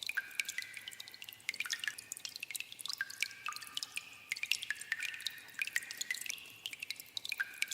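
Water dripping in a cave: many quick, irregular drops plinking into pools, each with a short ringing tone.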